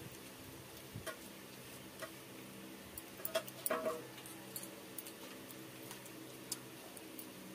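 Close-up eating sounds: scattered wet clicks and smacks from chewing and from fingers scooping watery pakhala rice out of steel bowls, with a cluster of louder ones about three to four seconds in. A steady low hum runs underneath.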